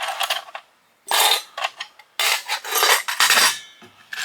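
Small salvaged fuse-box metal parts clinking and clattering together as they are handled, in three bursts of jangling.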